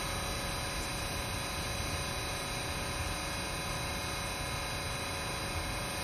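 A TTC subway train standing still at a station platform, its onboard equipment humming steadily: several steady tones over a hiss and a low rumble.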